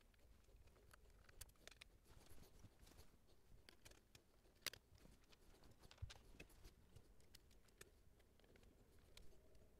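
Near silence broken by faint, scattered clicks and taps of hands handling and fitting the dial scale panel onto a portable radio's front, with one sharper click about halfway and a soft thump about a second later.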